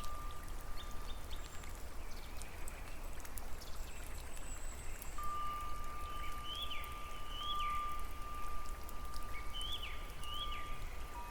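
Nature soundscape of rain or running water: a steady wash with scattered drip-like ticks and a steady low rumble underneath. A thin steady tone is held through most of it. In the second half come four short rising-then-falling chirping calls, in two pairs.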